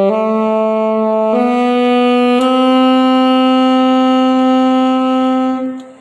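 Saxophone playing the opening of the sargam scale (Sa Re Ga Ma), stepping up through the notes. The last note, Ma, is held for about three seconds and stops shortly before the end.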